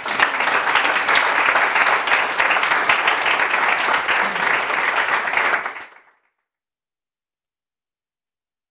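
Audience applauding: a dense patter of many hands clapping, which fades out and stops about six seconds in.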